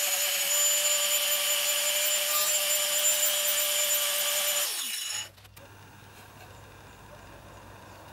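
Angle grinder fitted with a carving disc running steadily and cutting facets into a wooden bowl: a constant high motor whine with a gritty cutting sound. Near the middle it is switched off and the whine falls in pitch, then drops away to a faint low hum.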